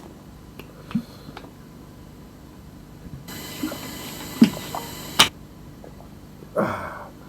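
Mouth and eating sounds close to the microphone: scattered small clicks and smacks, a hiss lasting about two seconds in the middle that ends in a sharp click, and a short hum from the eater near the end.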